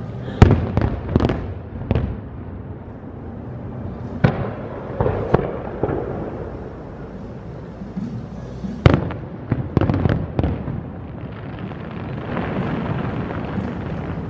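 Distant aerial fireworks shells bursting: clusters of sharp bangs, several in quick succession, coming in three groups a few seconds apart, each bang followed by a short echo.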